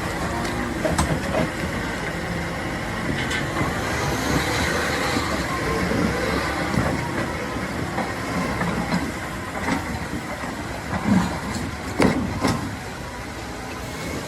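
A heavy machine running with a steady rumble and scattered knocks and clanks, the loudest about eleven and twelve seconds in.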